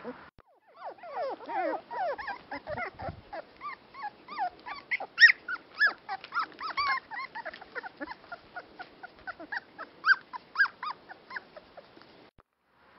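A litter of Dandie Dinmont Terrier puppies whimpering and yipping while they play-fight: a busy chatter of short, high squeaks that rise and fall, several a second, overlapping from more than one pup. It stops shortly before the end.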